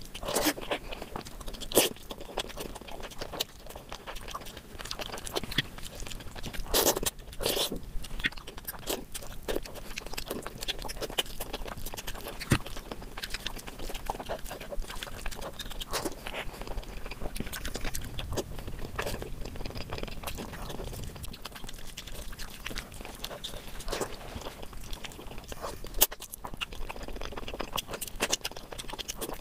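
Close-miked eating of spicy mutton curry: chewing, biting and wet mouth sounds, with irregular sharp clicks and crunches.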